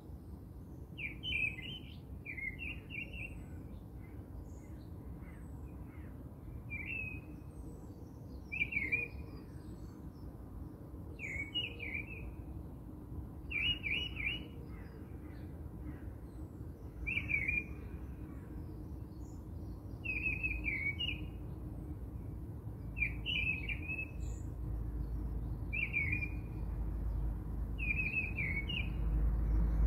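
A small bird chirps over and over, short trilled calls every couple of seconds, above a low steady rumble that grows louder near the end.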